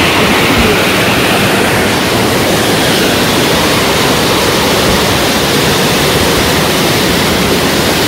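Loud, steady rushing wind noise buffeting the microphone while riding a motorbike.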